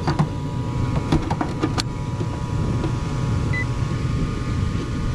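Gas furnace running with its burner lit and blower motor on: a steady hum with a faint steady whine. A few sharp clicks come in the first two seconds.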